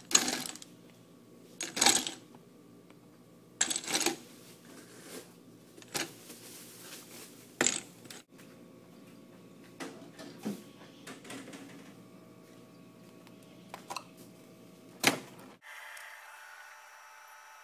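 Ice cubes dropped one at a time into a clear plastic cup, each landing with a sharp clink, every second or two.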